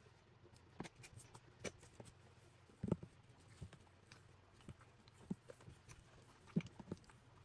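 Hands working slime and squishy slime balls: scattered soft squelches and small clicks, the two loudest about three seconds in and again near the end.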